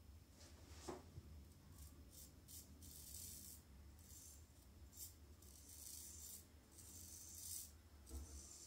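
Double-edge safety razor blade scraping through lathered neck stubble in a series of short, faint, raspy strokes.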